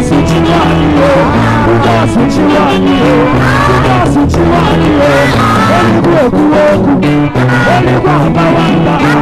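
Live gospel praise music: a singer's melody over a band playing steady chords with a beat.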